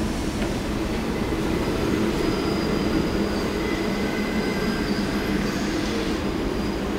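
New York City subway train running past, a steady rumble of wheels on rail with a faint high-pitched wheel squeal held through most of it.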